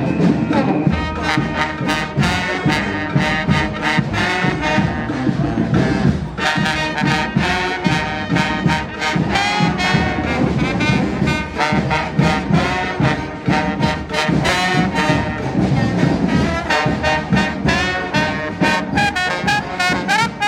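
A street band's horns playing a tune together live, over a steady percussion beat.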